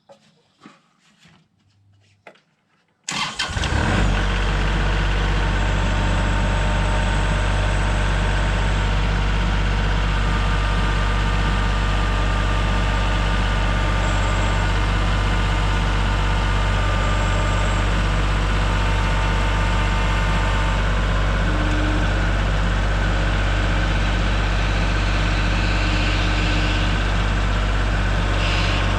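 A tractor engine starts about three seconds in after a few faint clicks, then runs at a steady idle.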